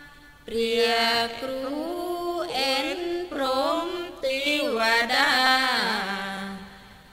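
A single voice chanting a slow, melodic Buddhist chant in phrases of held and sliding notes. It comes in about half a second in and fades out near the end.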